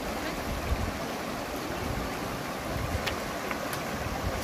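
Steady rushing of water and wind, with low gusty rumbles of wind on the microphone and a couple of faint clicks about three seconds in.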